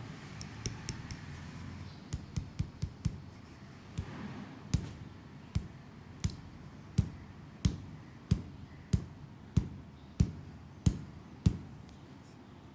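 Hands striking a leg in a rhythmic percussive massage: a few quick slaps, then a steady run of heavier thudding strikes about every two-thirds of a second that stops near the end.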